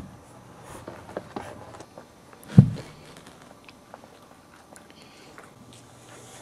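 Boxer puppies wrestling and mouthing each other: soft scuffling, small clicks and chewing sounds, with one dull thump about two and a half seconds in.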